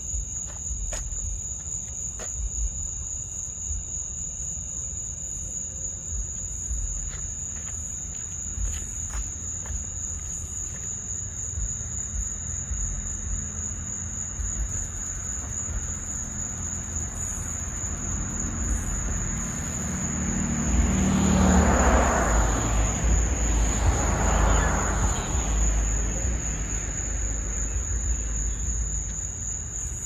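Crickets trilling in a steady high, unbroken tone over a low rumble. About two-thirds of the way through, a rushing noise swells, peaks twice and fades away.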